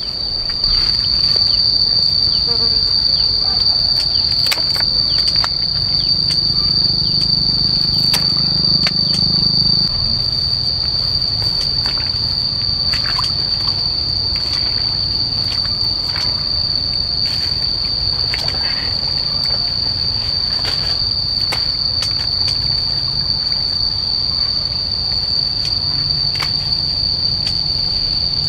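Insects droning in one steady, unbroken high-pitched tone, with scattered light clicks and knocks over it.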